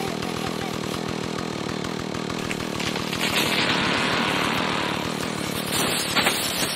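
Two-stroke chainsaw running steadily, getting a little louder partway through, with two sharp knocks near the end.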